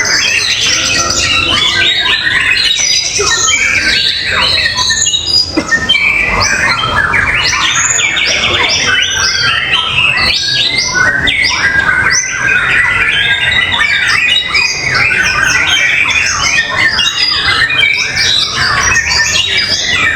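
White-rumped shama (murai batu) singing continuously in contest fighting mode: a loud, dense, unbroken flow of varied whistles, trills, chatters and mimicked calls (full 'isian' repertoire).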